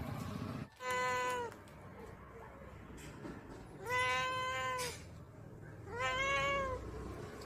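Domestic cat meowing three times, each meow a drawn-out call of under a second at an even pitch, about two to three seconds apart.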